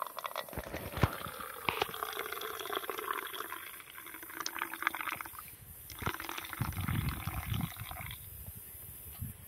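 Tea being poured, a stream of liquid running for about five seconds with a few small clinks near the start, then a shorter second pour.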